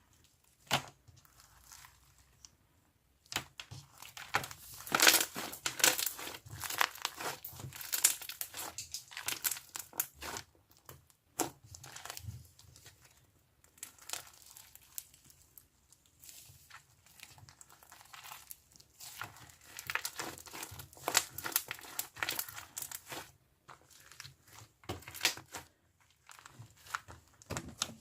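Hands squeezing and stretching slightly firm slime, with rapid crackling pops of trapped air bubbles coming in bursts between short pauses.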